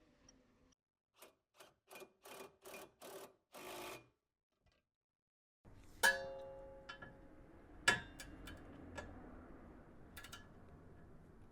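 A hand ratchet on a suspension bolt being worked in a run of about seven short, quick strokes. After a break, a sharp metal clank with a brief ringing tone, a second knock about two seconds later, then light clicks of tools and parts.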